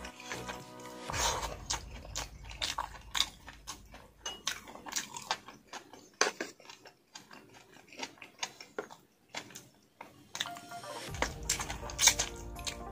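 A person chewing and biting meat off rib bones close to the microphone, with many small sharp mouth clicks and smacks. Soft background music plays at the start and comes back near the end.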